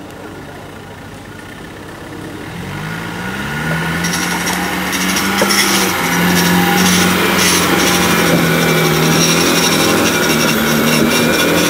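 Land Rover Defender engine revs rising about two and a half seconds in, then held steady under load. From about four seconds in, a loud rattling, scraping noise lies over it.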